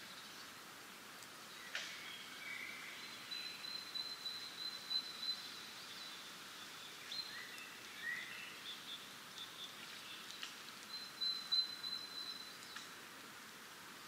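Songbirds singing in a spring forest: a high, rapid trill twice, with shorter chirps and rising notes in between, over a faint steady hiss of wind in the leaves.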